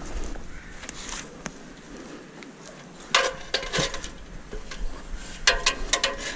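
Steel winch cable and its metal fittings being handled, clinking and rattling in two clusters of sharp metallic strikes, the first about three seconds in and the second near the end.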